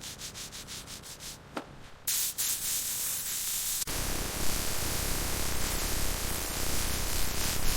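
Hand sanding: quick rhythmic rubbing strokes, about five a second, for the first two seconds. A steady hiss follows, with a low rumble underneath from about four seconds in.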